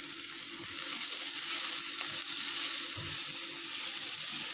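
Chopped onions, tomatoes and ground spices sizzling steadily in oil in a nonstick kadai while a wooden spatula stirs them, with a soft knock of the spatula about three seconds in.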